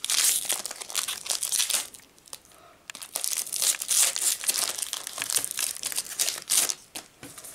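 Foil Pokémon TCG booster pack wrapper crinkling as it is torn open by hand and peeled apart, with a short pause about two seconds in.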